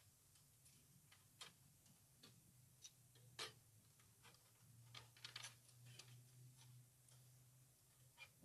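Faint, irregular clicks and light taps of thin stainless-steel grill plates being slotted together, with a faint low hum underneath.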